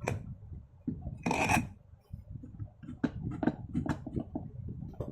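Metal ceiling-fan parts being fitted together by hand: a click at the start, a rasping scrape about a second in, then a run of small clicks and knocks as the part is worked down into its seat.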